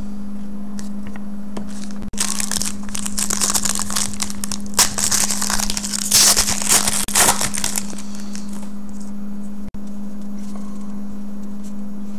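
Foil trading-card pack being torn open and its wrapper crinkled: a dense crackling from about two seconds in until about eight seconds in. A steady low hum runs underneath.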